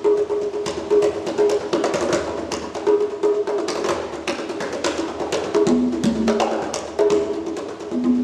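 Percussive music: fast, sharp wood-block-like clicks over a repeating pitched pulse, which drops out for a few seconds in the middle of the passage.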